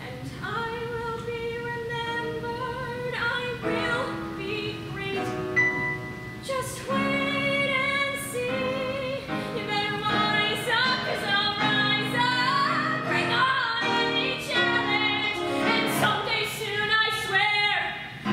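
A girl singing a musical-theatre song solo, accompanied on keyboard. She opens on a long held note, then moves through shorter sung phrases over the chords.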